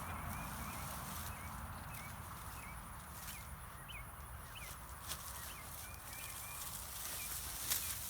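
Digging in garden soil, with a few sharp clicks and knocks, the loudest near the end. Small birds chirp in short, repeated calls.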